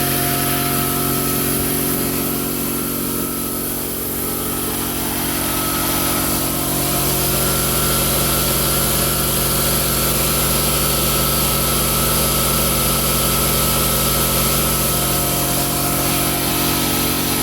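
Quincy 5 hp two-stage air compressor running steadily, its electric motor driving the two-stage piston pump as it builds up tank pressure.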